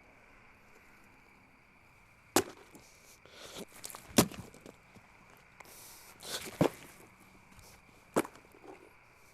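Four sharp cracks or knocks, a second or two apart, with crunching and rustling between them.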